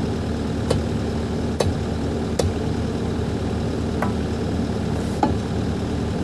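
An engine idling steadily, with five short, sharp knocks spread across the few seconds.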